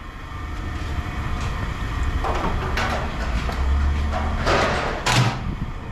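A vehicle engine rumbling low and steady, swelling briefly past the middle, with four short scraping or clattering noises over it in the second half.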